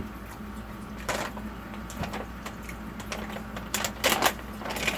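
Close-miked chewing and wet mouth smacks on a mouthful of breakfast goulash, soft rice mixed with butter, sugar and cheesy scrambled eggs. It is mostly quiet chewing, with short louder smacks about a second in and a cluster around four seconds in.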